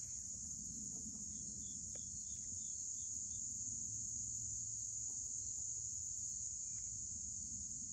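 A steady, high-pitched insect chorus, a continuous shrill drone of many crickets, with a short run of faint higher chirps about two seconds in.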